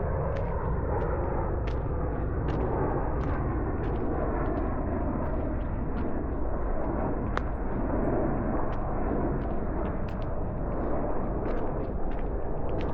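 Wind buffeting the camera's microphone in a steady low rumble, with faint light ticks about two or three a second, like walking footsteps.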